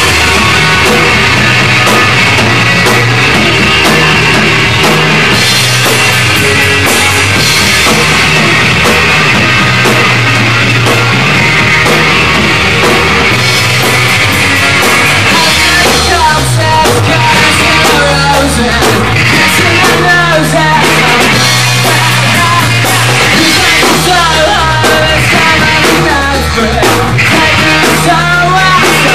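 Live rock band playing loud: electric guitar, bass guitar and drum kit.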